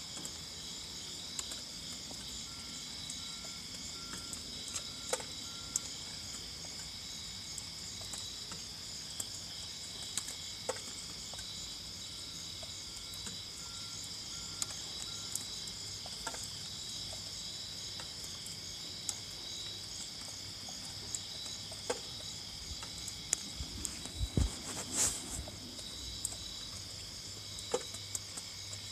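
A faint, evenly repeated beep at one pitch, about two a second, in two runs of half a dozen beeps each, over a steady chorus of crickets and other insects. Scattered faint clicks and a brief rustle near the end.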